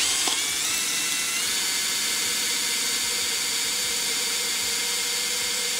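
Power drill spinning an arrowhead-tip multi-purpose bit as it grinds into a thick, hard glass container. A steady high motor whine that rises in pitch over the first second and a half, then holds.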